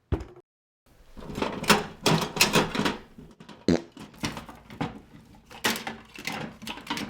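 Hand tools clattering and knocking as a toolbox is rummaged through: a long run of irregular knocks and rattles starting about a second in.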